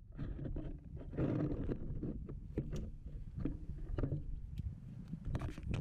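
Low rumble of wind on the microphone, with a few light knocks and rustles from the camera being handled.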